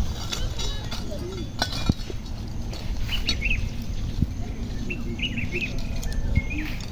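Small birds chirping in short clusters of quick high notes, about three seconds in and again about two seconds later.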